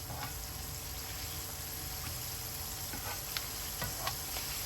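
Chicken wings frying in a pan, a steady sizzle, with a few light clicks in the second half.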